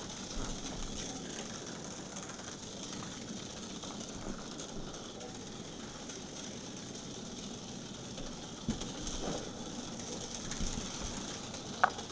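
Small battery-powered vibrating toy bugs buzzing and rattling on a concrete floor, a steady hiss with faint scattered ticks. A brief high squeak near the end.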